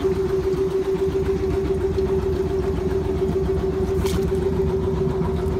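An engine running steadily: a constant hum over a low rumble, with one brief click about four seconds in.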